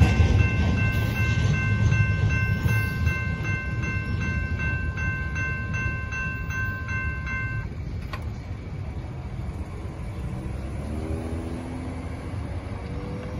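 Railroad crossing bell ringing about twice a second over the fading low rumble of the departing intermodal train. The bell stops abruptly about eight seconds in, followed by a single click. Near the end a car accelerates across the crossing, its engine rising in pitch.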